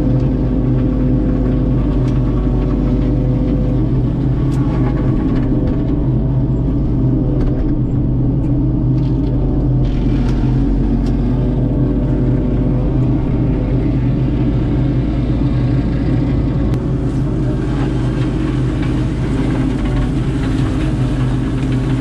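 Diesel engine of a grapple-armed excavator running steadily under load, with a higher tone from its hydraulics that comes and goes as the boom swings and the grapple handles brush.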